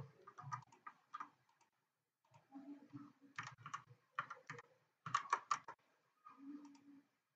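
Computer keyboard typing: quick runs of keystrokes in two spells, with a short pause between them about two seconds in.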